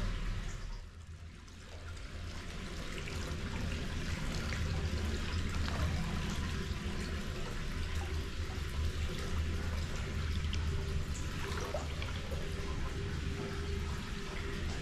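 Hot-spring water pouring steadily into a bath, a constant splashing rush that dips briefly about a second in and then holds steady.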